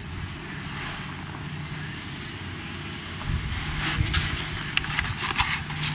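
Steady low outdoor rumble, with a faint hum and a string of light knocks and clicks starting about halfway through.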